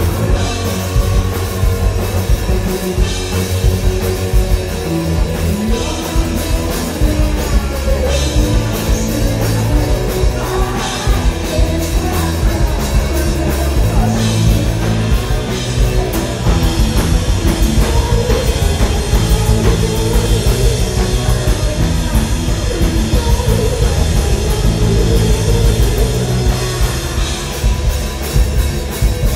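Rock band playing a song live at loud volume, with a drum kit keeping a steady beat under amplified instruments and singing.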